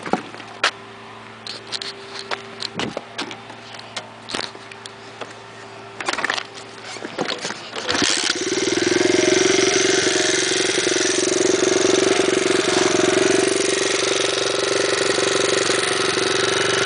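2007 Wildfire 110 pit bike being kickstarted: a series of knocks over the first half, then the single-cylinder engine catches about eight seconds in and idles steadily through its big-bore muffler.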